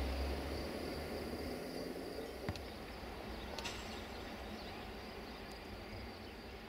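Outdoor ambience beside a rural railway line: a low rumble that fades away over the first second or so, under a steady high insect chirring and an even hiss. Two faint clicks come a little past the middle, and the whole ambience grows slowly quieter.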